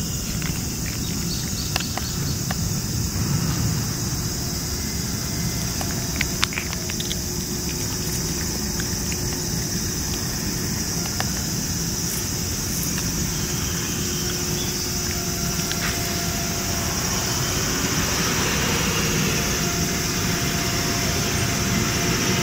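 A cat chewing wet food and kibble from a metal bowl close up, with scattered small clicks, over a steady high insect drone and a low rumble.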